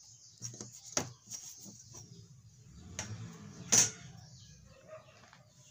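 Clicks and knocks from a steel ruler being handled on a drawing board, a line ruled along it and the ruler lifted off with one sharp clack near the end, over faint background noise.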